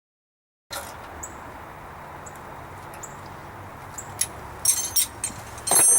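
Silence, then steady background hiss from about a second in with faint high chirps roughly once a second. Near the end come several sharp metal clinks with ringing overtones, the loudest just before the end: steel bumper hardware being handled.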